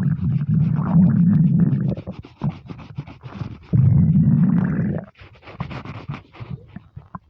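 Empty stomach rumbling: two long, low growls, the first about two seconds long and the second starting about three and a half seconds in, with rapid gurgling clicks between and after them.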